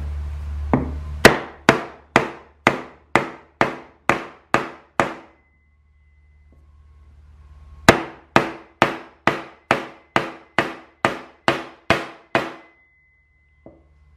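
Hammer blows on a wooden block, driving a new bushing into a 47RE transmission's direct clutch drum. Two runs of steady blows, about two a second, with a pause of a few seconds between them.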